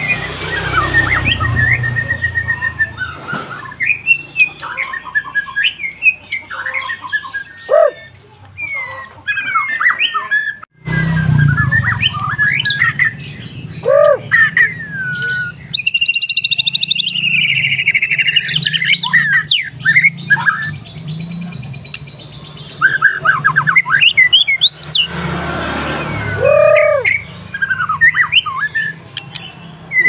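White-rumped shama singing a loud, varied song of sweeping whistles, fast trills and rapid repeated notes, phrase after phrase with short pauses.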